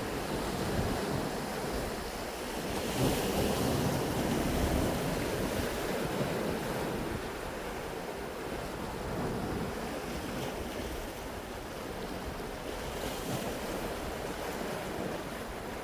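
Sea surf washing on a beach under strong wind, with wind buffeting the microphone; a stronger gust about three seconds in.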